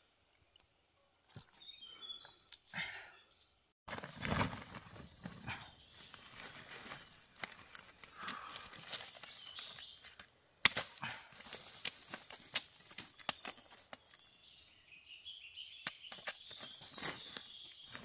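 Dry bamboo leaves crackling and a sack rustling as a person shifts and handles things on the forest floor, with one sharp knock about ten seconds in and faint bird chirps.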